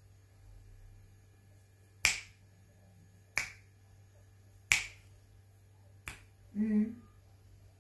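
Four sharp finger snaps, evenly spaced about a second and a half apart, followed by a brief vocal sound.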